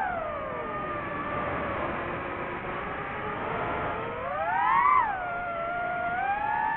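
DJI FPV drone's motors and propellers whining, the pitch sliding down, climbing to a peak about five seconds in, dropping again and then holding steady as the throttle changes.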